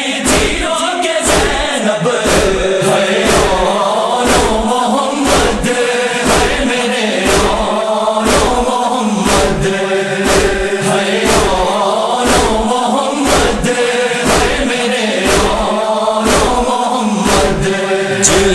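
A male chorus chanting a noha refrain in slow unison lines over a sharp, steady beat of about two strokes a second.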